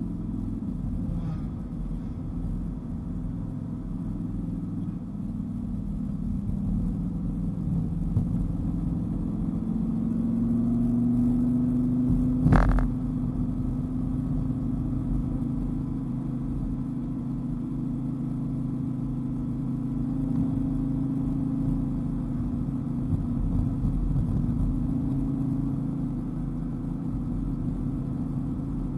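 Dodge Viper's V10 engine running on the move, its pitch climbing for a few seconds partway through. A single sharp knock comes about halfway, after which the engine holds a steady note.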